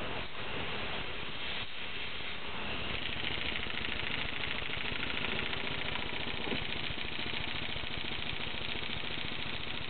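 Model three-cylinder inline oscillating engine running steadily on compressed air, a fast, even chatter of exhaust puffs with a hiss of air.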